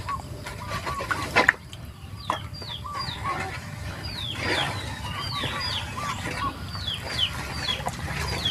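Chickens calling: repeated short, high, falling peeps and lower clucks. Under them, a wooden stick stirs liquid in a metal bowl, knocking now and then, once sharply about a second and a half in.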